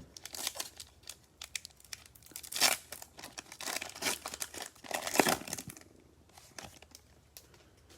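Foil trading-card pack wrapper being torn open and crinkled, in a run of crackling tears for about five seconds, then a few light clicks as the cards are handled.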